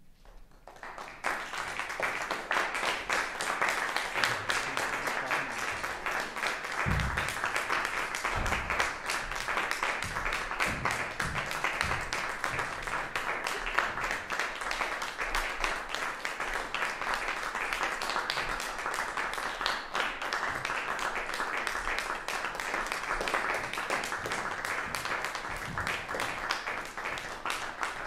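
Theatre audience applauding, starting about a second in and then keeping up a dense, steady clapping.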